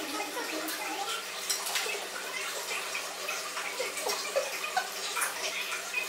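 Steady whooshing hum of a running electric motor, with a few light clicks and taps scattered through it.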